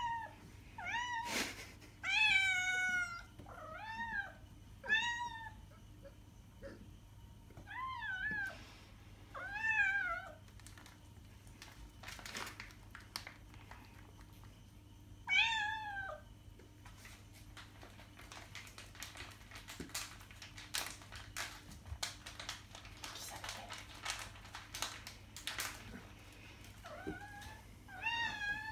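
Orange tabby cat meowing again and again, about ten short rising-and-falling meows, begging for treats from a held bag. Between the meows, in the second half, a foil treat bag crinkles.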